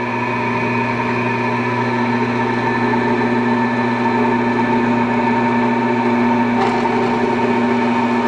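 Horizontal metal-cutting bandsaw running with a steady motor hum. Its fine 24-tooth blade lowers onto a metal bar clamped in a vise and starts to cut.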